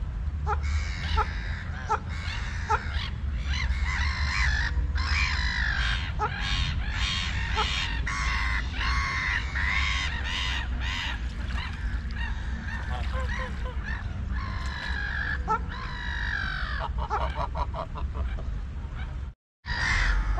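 Domestic white waterfowl calling over and over, many overlapping calls with short sharp notes among them, over a steady low rumble. The sound cuts out completely for a moment near the end.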